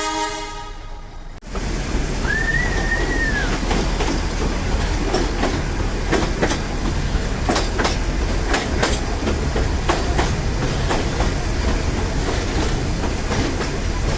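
Diesel-hauled metre-gauge Nilgiri Mountain Railway train: a horn sounds for about a second and a half, then the coaches run on with steady rumble and repeated clattering of wheels over rail joints. A little after two seconds comes a short squeal that rises and falls, wheels grinding on a curve.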